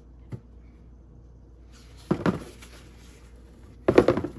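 Handling noise from a pair of leather sneakers being turned and knocked about over their shoebox: a small click, then two loud knocks about two seconds apart, the second a quick cluster of knocks.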